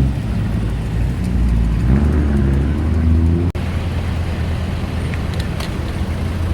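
Road traffic: motor vehicles running past with a steady low rumble, one engine's pitch rising about two seconds in. The sound drops out abruptly for an instant about three and a half seconds in.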